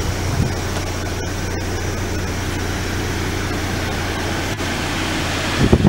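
Steady low mechanical hum under a broad, even hiss.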